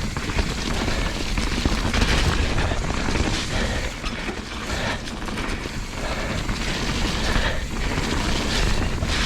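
Mountain bike being ridden over a wet, rough trail: a constant low rumble from the tyres and frame, with frequent knocks and rattles from the bike.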